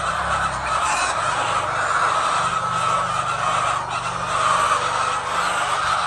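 A large flock of chickens in a poultry shed clucking and squawking all at once: a dense, steady chorus of overlapping calls.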